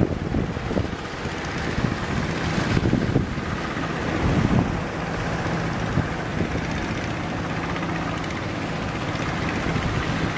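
Strong wind buffeting the microphone in low thumps, over a fishing boat's engine running steadily.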